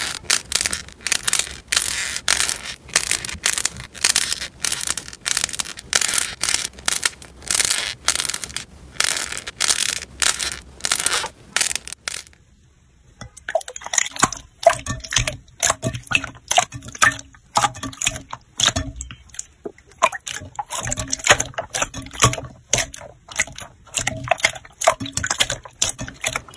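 Slime being squeezed and broken by hand: rapid, dense crunching crackles from a crusted slime, then after a short break, slower sticky pops and clicks as a thick mass of slime is pressed and kneaded.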